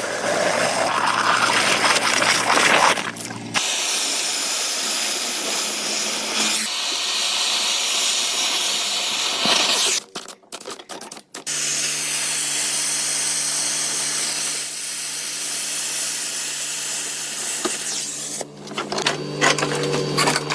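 Workshop power-tool noise in several cut-together clips: a steady hiss, then a motor-driven tool with a steady low hum under the hiss.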